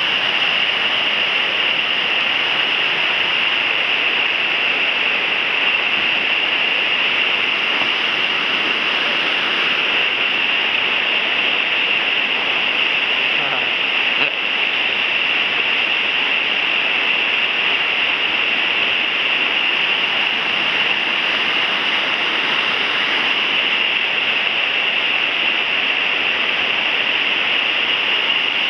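River water pouring over a weir and churning into white water below: a loud, steady rush that does not let up.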